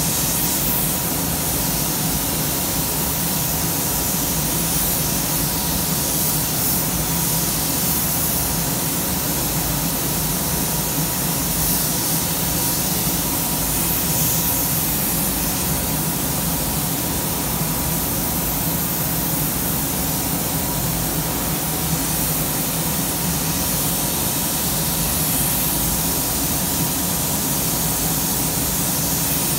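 Siphon-feed compressed-air paint spray gun hissing steadily as it sprays paint onto a car panel, over the even rush of a paint booth's ventilation.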